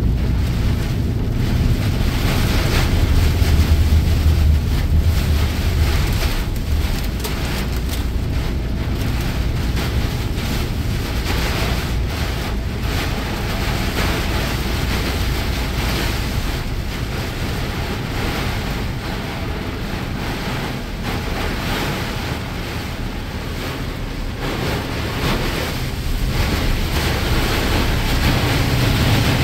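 Heavy rain pelting the windscreen, heard from inside the cab of a moving vehicle, over a steady rush of tyres on the wet road. A low engine and road rumble swells in the first few seconds.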